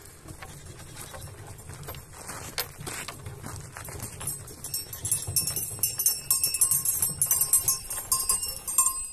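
Footsteps and knocks as a wooden goat milking stand is carried over dry ground. From about five seconds in, small bells jingle, typical of goats' bells as the animals come up to the fence.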